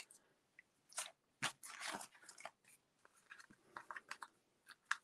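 Faint crinkling and light clicks in short, scattered bursts: small foam adhesive dimensionals being peeled from their backing sheet and pressed onto cardstock.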